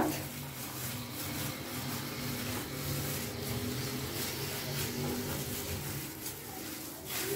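Gloved hand working flour and cold water together in a bowl to make dough, a soft rubbing and rustling, over a steady low hum.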